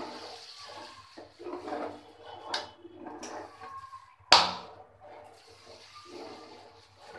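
Water boiling in an aluminium pot and sloshing as a metal spoon stirs it while pounded pearl millet is poured in by hand. One sharp knock about four seconds in is the loudest sound.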